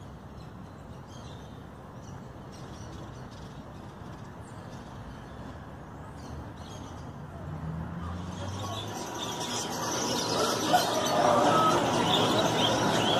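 Low traffic rumble with faint bird chirps. From about eight seconds in, many caged canaries and other small finches chirp and sing loudly all at once.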